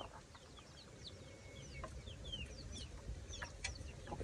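Faint, short falling chirps of birds, many of them, scattered throughout, with a single soft click at the very start.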